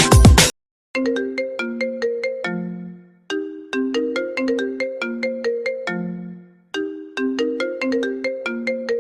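Smartphone incoming-call ringtone: a short melody of quick notes, each dying away, repeating about every three seconds. About half a second in, a louder, denser electronic ringtone cuts off just before it starts.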